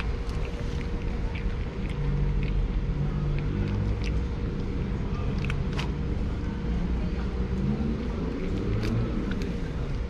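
Steady low rumble of a motor vehicle, with faint engine tones rising and falling through the middle. Over it, scattered short sharp clicks of a cat crunching dry kibble.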